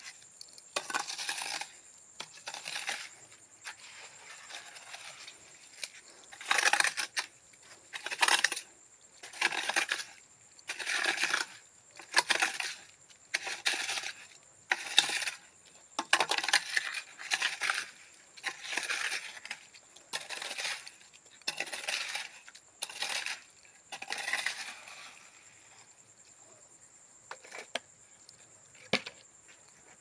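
A hand tool scraping and pressing through wet, gritty cement mix in a steady rhythm, about one stroke every second and a half. The strokes stop about 25 seconds in, followed by a few light clicks.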